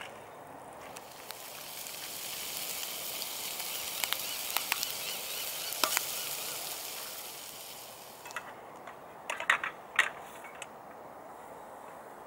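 Bacon sizzling and popping in a non-stick frying pan on a portable gas stove. The sizzle swells in the middle and fades, and a few sharp clicks follow near the end.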